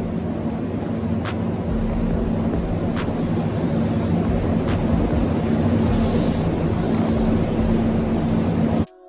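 Steady mechanical drone with a low hum, like a large fan or motor running, with faint ticks about every second and a half. It cuts off abruptly near the end.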